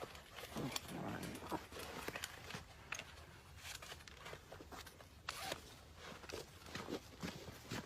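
Irregular rustling and scraping with short clicks and light knocks.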